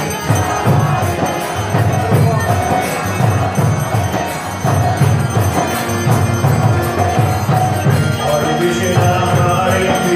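Devotional kirtan music: a steady drum beat with jingling metal percussion in time and sustained melodic tones.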